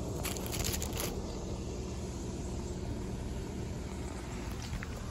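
Steady low rumble of outdoor background noise, with a brief scratchy noise about half a second in.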